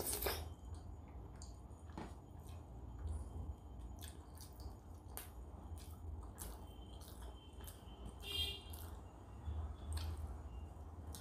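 Close-miked eating: wet chewing and lip smacks, with fingers squishing and mixing rice and dal on a steel plate. A brief high squeak a little past eight seconds, over a steady low hum.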